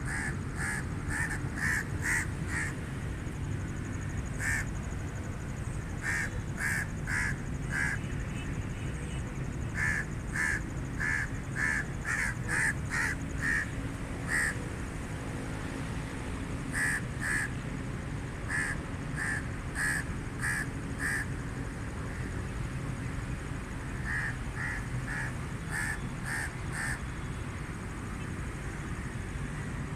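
Crows cawing: bouts of short, harsh caws at about two a second, with pauses of a few seconds between bouts, over a steady low rumble.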